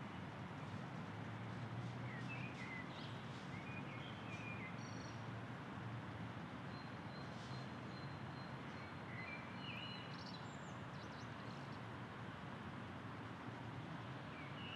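Faint outdoor ambience: a steady low background hum with scattered short bird chirps and calls.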